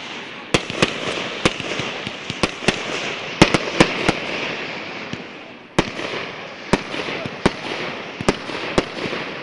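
Fireworks going off: a string of sharp bangs at uneven intervals, several close together around three to four seconds in, over a steady crackling hiss of many smaller pops.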